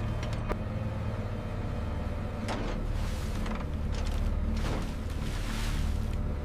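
Heavy recovery machinery running with a steady low rumble, with a couple of sharp metallic clicks near the start and several harsh scraping, hissing surges later on.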